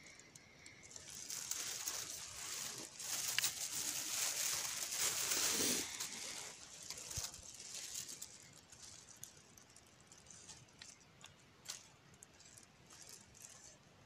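Blackberry bramble leaves and stems rustling and crackling as a hand pushes through them to pick berries, loudest for the first several seconds, then softer with scattered small snaps.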